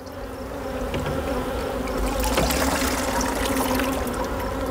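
Water poured from a plastic bottle through a cheesecloth-lined strainer into a bucket, rinsing a sample of honey bee brood. The pouring builds about half a second in and then runs steadily over a steady hum of honey bees buzzing.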